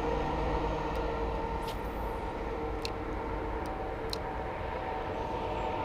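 A john boat's motor running steadily as the boat moves, a low rumble with a steady hum over it, and a few faint clicks.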